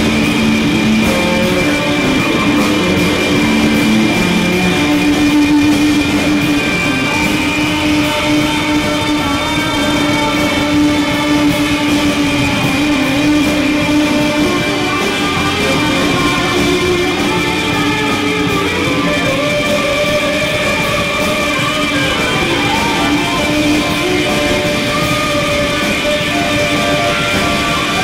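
Live rock band playing on electric guitars: a loud, steady wall of long held notes.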